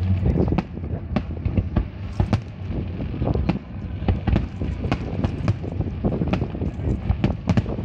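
Fireworks display going off: a dense, irregular run of sharp bangs, several a second, over a low rumble.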